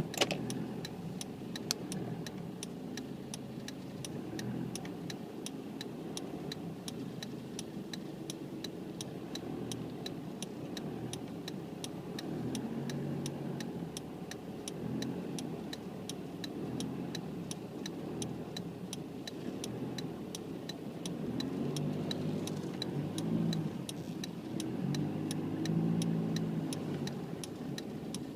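Car engine running with a steady, even clicking of the flasher relay, about two to three clicks a second, heard from inside the car; the engine note rises a few times in the second half.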